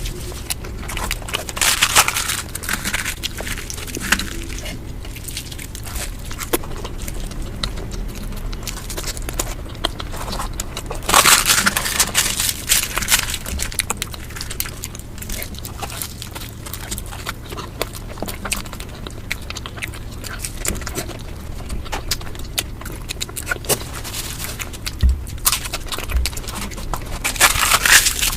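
Close-miked eating of Indian street food: a dense run of crunching, smacking and chewing sounds, with louder crunches about two seconds in, around eleven to twelve seconds, and near the end.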